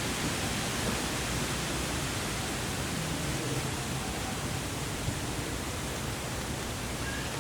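Steady rushing outdoor noise, even and unbroken, with no distinct calls or knocks standing out.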